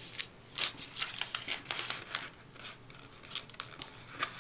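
A sheet of notepad paper rustling and crinkling as hands fold it and run the crease flat, heard as an irregular string of short, sharp rustles.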